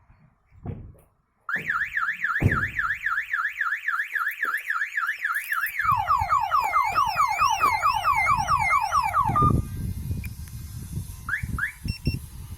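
Prestige van alarm siren set off by the door circuit as the lock is picked. After a couple of knocks it starts with a loud rising-and-falling warble, switches about four seconds later to a faster falling yelp, and cuts off with a short beep.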